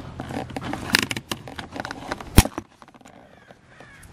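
Hand rivet gun being worked on a pop rivet through the plastic front lip: a run of small metallic clicks and knocks, then one sharp snap a little over two seconds in.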